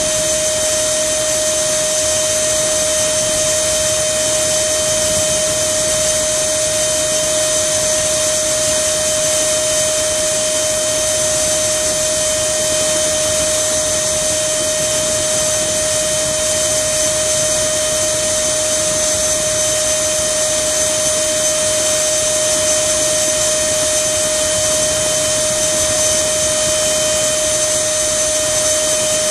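64 mm electric ducted fan unit on an RC plane running steadily at high throttle, a constant pitched whine over a rushing hiss with no change in speed.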